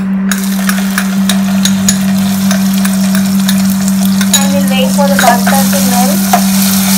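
Butter sizzling and bubbling as it hits melted, golden caramelized sugar in a hot steel pan, starting about a third of a second in, with scattered clicks of a perforated steel ladle stirring it. A steady low hum runs underneath.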